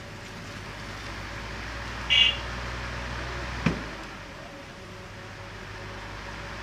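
Electric fan motor running with a steady low hum and whir, plausibly the 20-inch fan test-running on its rewound coil. A short high chirp sounds about two seconds in, and a sharp click a little later.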